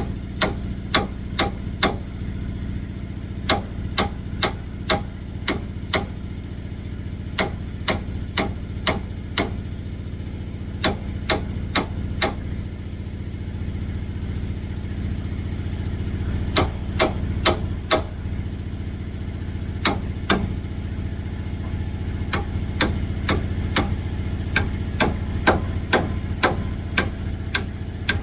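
Hammer blows in runs of several strikes, about two a second, with pauses between the runs, over an engine idling steadily.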